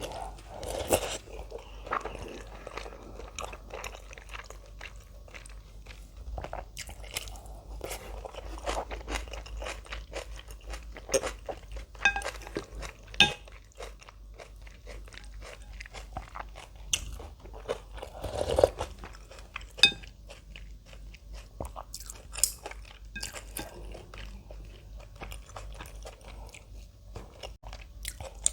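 Close-miked crunching and chewing of kimchi, irregular crisp crunches with wet chewing between them.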